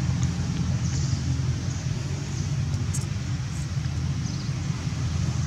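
Steady low rumble of outdoor background noise, with a few faint clicks around the middle.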